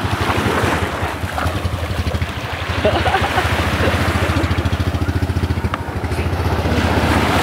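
An engine idling with a steady, rapid putter, over the wash and splash of small surf waves.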